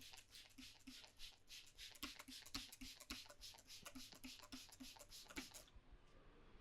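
Hands working quickly over a person's head and hair during a head massage: a fast run of soft rubbing strokes, about four or five a second, that stops suddenly near the end.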